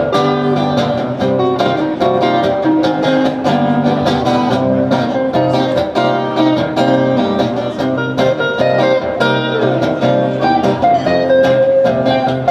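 Guitar music: a guitar plays a run of plucked notes over a steady low bass.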